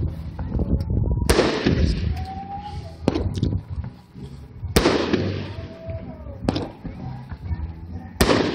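A 500-gram consumer firework cake firing a sequence of heavy booms, about one every one and a half to two seconds. Each boom trails off for a moment, and a few thinner pops fall between them.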